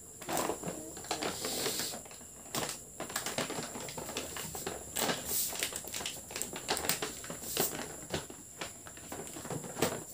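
Plastic packaging and wrappers crinkling and rustling as they are handled, with many irregular small crackles and clicks.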